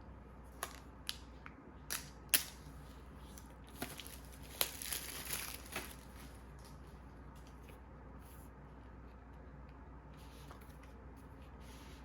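Packaging being handled during an unboxing: a string of light clicks and taps, then a short rustle of paper or plastic packaging a little before halfway through, after which only faint room noise remains.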